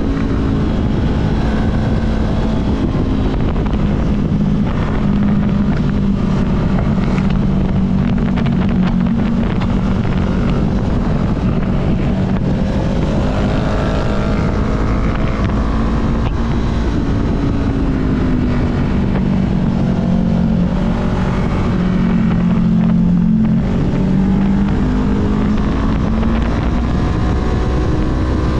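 Honda CB500F's parallel-twin engine running at road speed, its pitch dipping and rising gently with the throttle through the bends. Heavy wind rush on the microphone.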